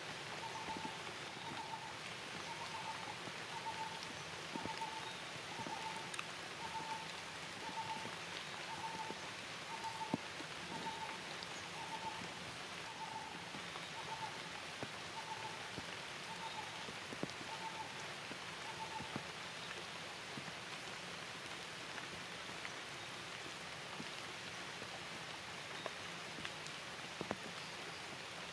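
Steady rain falling, with scattered drop clicks. A faint repeated high note sounds about three times every two seconds and stops about two-thirds of the way through.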